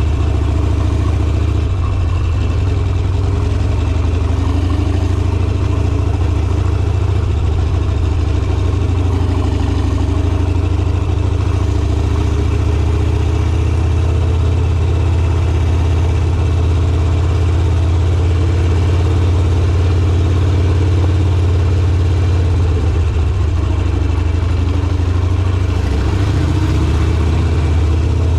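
Harley-Davidson Sportster's V-twin engine running at low, fairly steady revs while riding, its pitch drifting gently up and down with the throttle.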